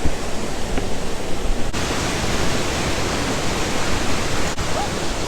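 Loud, steady rush of falling water from a waterfall, broken for an instant twice.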